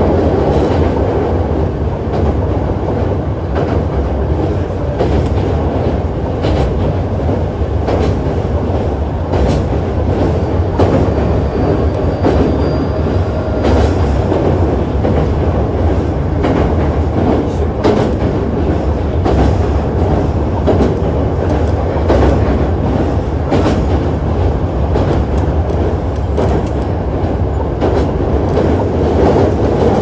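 Hankyu 7300-series electric train with a Toyo IGBT inverter, heard running from inside: a continuous rumble with wheels clicking irregularly over rail joints.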